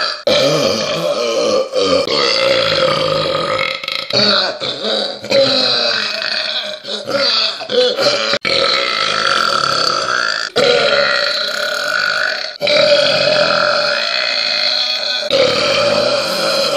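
Human burps, one long, loud belch after another with only short breaks between them, each drawn out and wavering in pitch.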